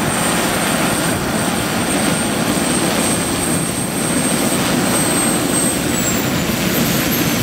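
A large-scale RC Mi-24 helicopter's Pahl Taurus two-stage turbine and five-blade rotor run as the model sets down on its wheels. About six seconds in, the turbine's high whine starts to fall as it spools down after landing.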